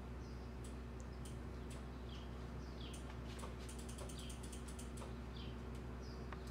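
Steady low hum with scattered light ticks and clicks, including a quick run of clicks midway, and a few faint, short, high bird chirps.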